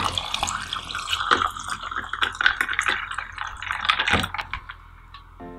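Orange juice poured in a thin stream into a tall glass of ice cubes: a splashing pour with many small clicks of ice knocking against the glass. The pour stops a little over five seconds in.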